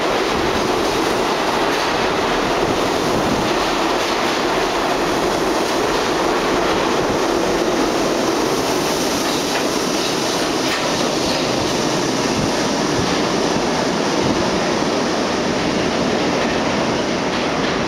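R42 subway train pulling out of an underground station, a loud steady rush of wheels on rail and running gear, with scattered clicks as the wheels pass rail joints.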